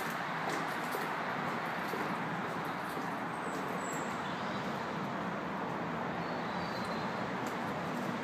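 Steady, even rush of motorway traffic on the M40, with a few light clicks near the start and faint bird chirps.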